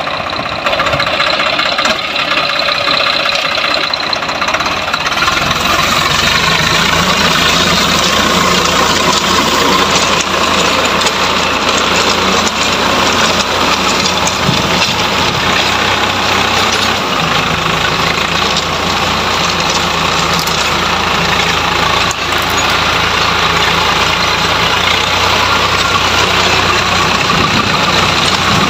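Swaraj 855 FE tractor's three-cylinder diesel engine running under load while its rear rotavator churns through the soil, a steady dense mechanical noise that grows louder and fuller about five seconds in.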